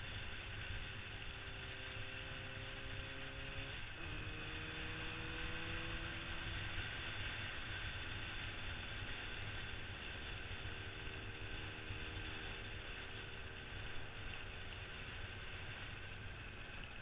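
Yamaha RD400 two-stroke twin running under way, its note climbing, dropping suddenly about four seconds in as it shifts up a gear, then climbing again and settling to a steady cruise. A heavy low rumble of wind on the helmet camera runs under it.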